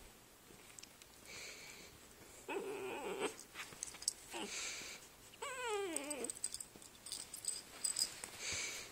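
Great Dane puppies whining and grumbling as they play-wrestle: a few short whines, then a longer one that slides down in pitch about five and a half seconds in, with breathy puffs between the calls.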